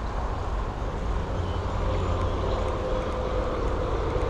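Steady low wind rumble on the microphone, with a faint steady hum joining about two seconds in.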